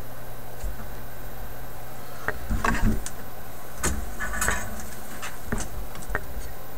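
Hand tools being set down and picked up on a workbench: scattered small clicks and two short bouts of metallic clatter, the louder about two and a half seconds in, over a low steady hum.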